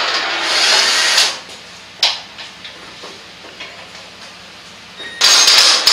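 Cordless drill-driver spinning out the head bolts of a Hydracell H25 pump. It runs for about the first second, a sharp click comes at about two seconds followed by faint ticks, and it runs again in a short burst near the end.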